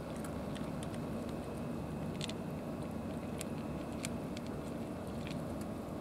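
Cats crunching dry kibble: sharp, irregular crunches over a steady low background rumble.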